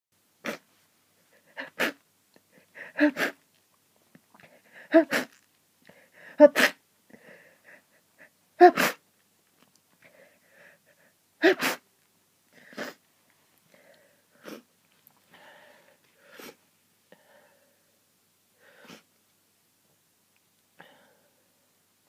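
A person's hay-fever sneezing fit: about eight sharp sneezes in the first thirteen seconds, several coming in quick pairs, then a few fainter sounds further apart.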